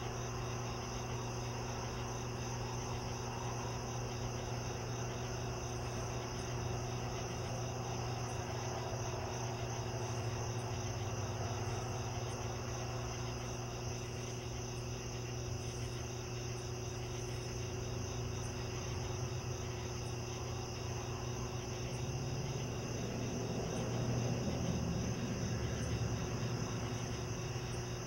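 A steady chorus of night insects chirping in a fast, even pulse, over a low steady hum. A low rumble swells briefly near the end.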